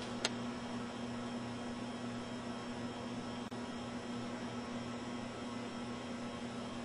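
Steady electrical mains hum over a faint even hiss, with one short click about a quarter of a second in.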